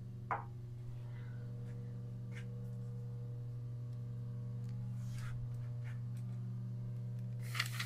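Steady low electric hum of the surface grinder's motor running. Over it come a few light clicks and knocks as the work lamp is handled: a sharp click just after the start and a short rattle near the end.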